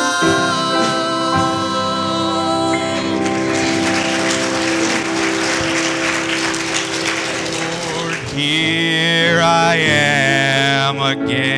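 Women's voices and a grand piano holding the final chord of a song, which stops about three seconds in; the congregation then applauds for several seconds, and near the end a man starts speaking through a microphone.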